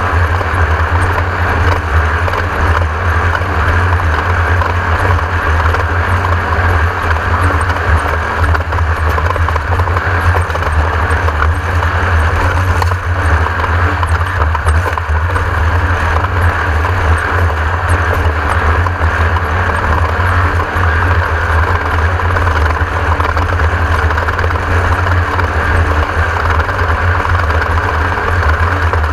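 Class 1600 desert race car running steadily at speed, its air-cooled 1600 cc Volkswagen flat-four giving a loud, unbroken low drone mixed with driving noise.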